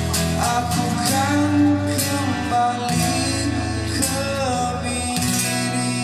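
A man singing into a microphone while strumming an acoustic guitar: a live solo acoustic song.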